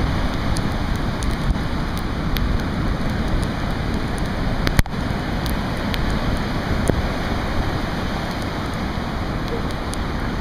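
Hurricane-force wind buffeting the microphone over heavy surf breaking and washing up the beach, a steady dense rush. A single sharp knock about halfway through.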